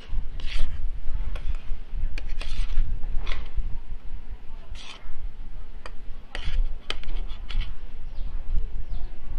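Metal spoon and fork scraping and clicking against a ceramic plate while gathering up fried rice, in short scrapes with sharp clinks scattered through, over a steady low rumble.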